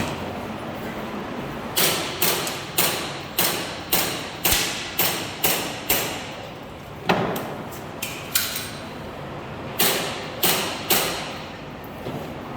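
Gas blowback airsoft pistol, an Umarex Glock 17, fired shot after shot: a quick string of about nine shots at roughly two a second, then after a short pause about four more, slower and spaced out.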